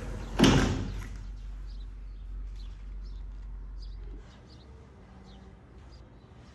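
A single loud knock about half a second in, then birds chirping in short, high notes roughly twice a second. A low hum underneath stops about four seconds in.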